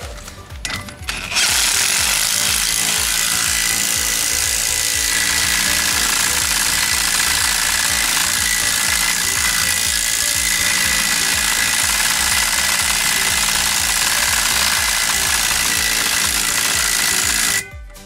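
Cordless impact wrench hammering steadily on a VW Beetle's rear axle nut, tightening it to draw the axle back through the hub. It starts about a second and a half in and cuts off just before the end. Background music with a steady beat plays underneath.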